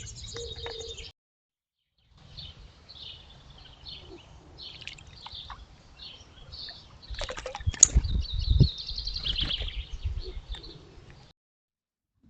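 Small birds chirping in quick, short calls, with a louder stretch of low rumbling and a sharp knock about eight seconds in. The sound cuts out completely twice, as separate clips join.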